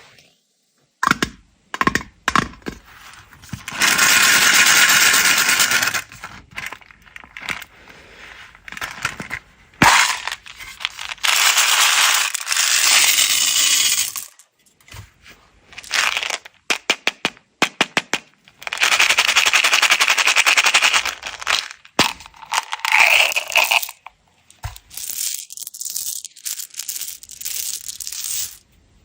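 M&M's candies pouring out of containers in several long rattling pours of a few seconds each, with scattered clicks and taps of candies and containers in between.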